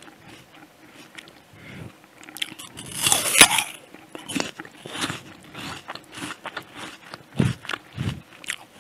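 A person biting into a juicy Jazz apple, with one loud crunch about three seconds in, then chewing with repeated crunches, picked up close on a headset microphone.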